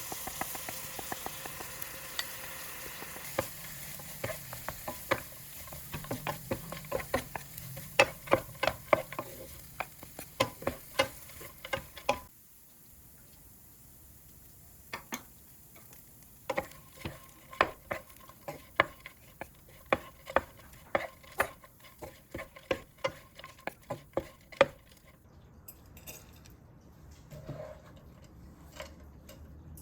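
A spatula stirring and scraping small dried anchovies in a frying pan over sizzling oil, with rapid clicks and taps against the pan. The sizzle stops abruptly about twelve seconds in. Stirring clicks go on without it until a few seconds before the end, when it turns faint.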